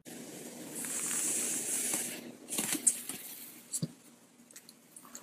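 A dog's paws scraping and sliding over a hardwood floor: a hissing rub for about a second and a half, then a few light clicks and scuffs of claws on the wood.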